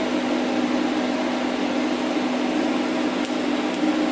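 TIG welder running during a weld: a steady hum with the hiss of the arc as filler rod is dipped into the puddle. A few faint ticks near the end.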